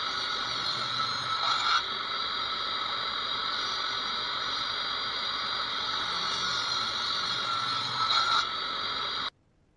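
Benchtop table saw running with a steady high whine as a mahogany block is fed through the blade. The sound gets louder briefly about two seconds in and again near the end, then stops suddenly.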